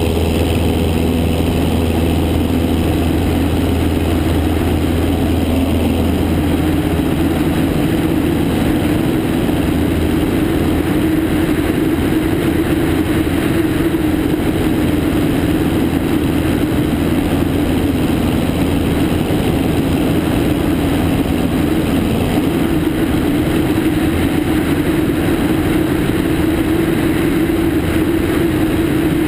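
Cessna 152's four-cylinder Lycoming engine and propeller running at takeoff power, heard from outside the aircraft with heavy wind rush on the microphone. A steady low engine drone is plain for the first several seconds, then the wind noise takes over as the plane lifts off and climbs.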